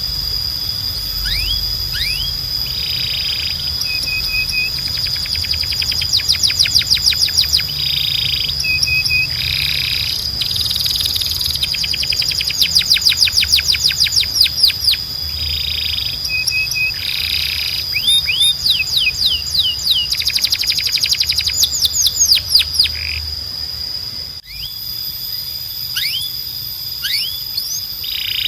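Timbrado canary singing in long rolling trills of rapid, repeated, down-sweeping notes, with several runs a few seconds long broken by shorter notes.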